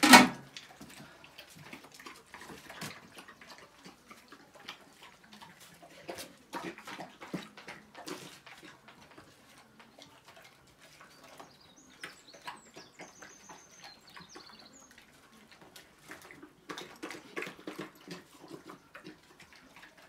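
Dogs eating bread soaked in bone broth: irregular wet lapping, smacking and chewing. A single loud clank at the very start, and a bird chirps a few times near the middle.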